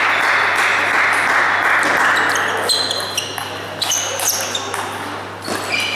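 Table tennis rally: the ball clicks sharply off bats and table several times from about three seconds in, each hit with a short high ring. A loud, even rushing noise fills the first two seconds, and a steady low hum runs beneath.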